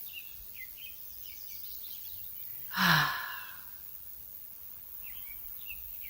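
Small birds chirping now and then, with one short, loud sigh about halfway through, its pitch falling.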